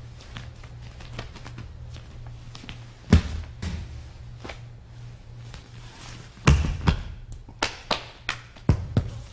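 Thuds and slaps of feet and bodies on a padded training mat, with gi cloth rustling. One loud thud comes about three seconds in and a heavier one past six seconds, then a run of sharp taps near the end, over a steady low electrical hum.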